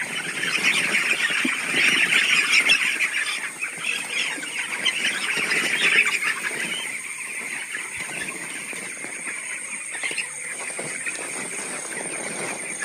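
A flock of broiler chickens cheeping and calling together, many overlapping calls, busiest for the first six seconds and then quieter, over a steady high whine.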